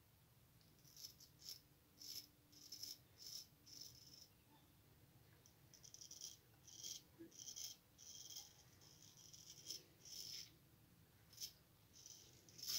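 Straight razor scraping stubble off a lathered face: about a dozen short, faint strokes, some in quick pairs.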